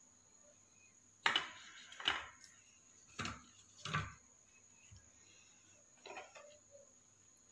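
Plates knocking lightly on a tabletop as doughnuts are dipped and set down: about five short knocks, the first about a second in the loudest.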